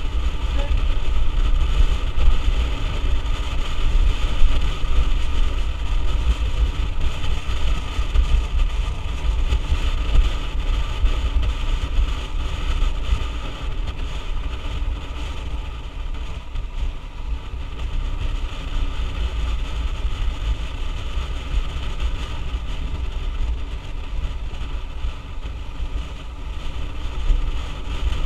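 A motorbike riding steadily along a road: the engine runs evenly under heavy wind rumble on the microphone.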